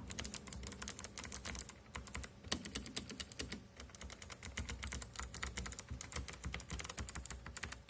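Typing on a low-profile mechanical keyboard with Kailh Blue clicky switches: a fast, irregular run of sharp key clicks, pausing briefly near the middle.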